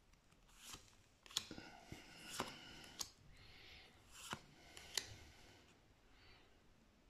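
Unsleeved trading cards being flipped through by hand one at a time: faint rustling of card stock with about five soft snaps as each card is slid off the front of the stack and tucked behind.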